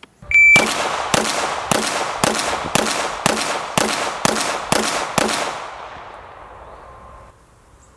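A shot timer's start beep, then ten 9mm pistol shots from a Glock 19X fired at an even pace of about two a second, each shot echoing; the echo dies away after the last shot. This is a deliberate control group: each shot is fired after the red dot settles.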